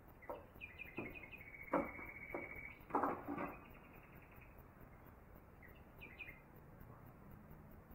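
Light knocks and handling of a rough wood blank, struck twice a little harder in the first few seconds, with a few short high chirps in among them.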